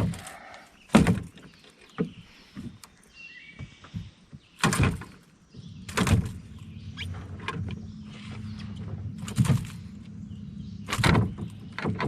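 Scattered knocks and thumps in a small one-man fishing boat. About halfway in, a low, steady motor hum starts and runs on under further knocks.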